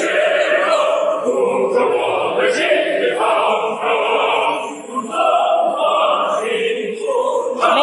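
Background music with choir-like singing in continuous phrases.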